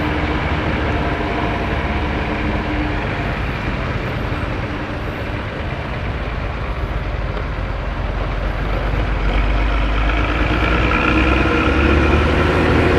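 Exhaust of an ALS intercity bus's diesel engine running with a low, steady rumble, an exhaust note likened to a person snoring. It grows louder over the last few seconds.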